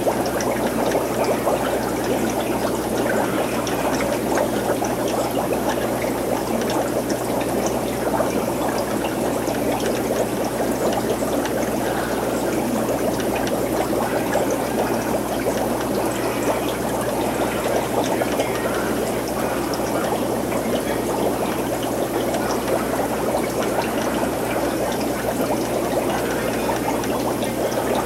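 Steady aquarium water noise, trickling and bubbling without a break, over a low steady pump hum.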